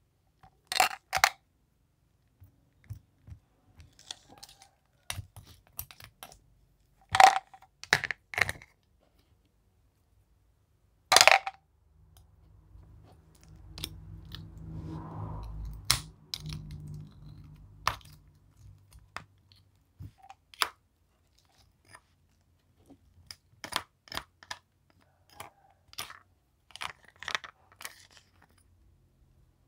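Scattered sharp clicks and clacks of small hard candies and a plastic spoon against a plastic plate and bottle, a few of them much louder than the rest. In the middle comes a softer, low squishing noise as the spoon works through the slime.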